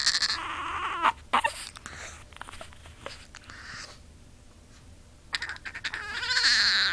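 A Chihuahua whining in her own odd, squawking way: a loud cry at the start, a few short squeaks about a second in, a quieter spell, then a long, loud whine building from about five seconds in.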